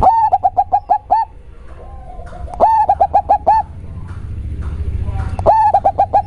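Local perkutut (zebra dove) cooing its song, a very deep, bassy voice: three phrases of quick repeated coo notes, about seven notes each, at the start, about two and a half seconds in, and near the end.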